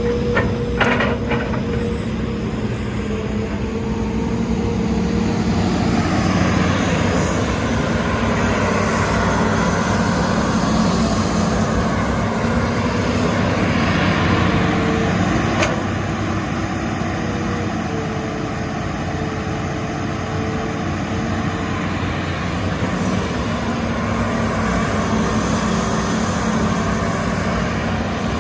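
Hitachi Zaxis hydraulic excavator's diesel engine running steadily, with a rush of noise that swells about six seconds in and eases off about ten seconds later. A few sharp clicks near the start and one more midway.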